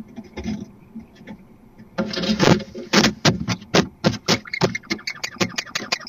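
Barn owl inside a wooden nest box: a run of quick, rasping strokes that starts about two seconds in and speeds up to about five a second.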